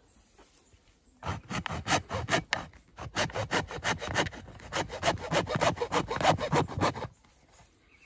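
Hacksaw cutting through the hard shell of a green calabash gourd: a run of quick, even back-and-forth strokes that starts about a second in and stops about a second before the end.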